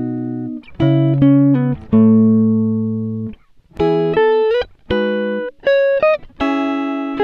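Background music: a guitar melody of plucked notes and chords, each ringing and fading, with short pauses between phrases.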